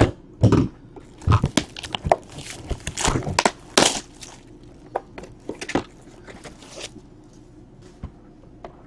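Cellophane shrink-wrap being torn and crinkled off a trading card box, a dense run of sharp crackles over the first few seconds, then sparser rustles and taps as the cardboard box is opened, dying away near the end.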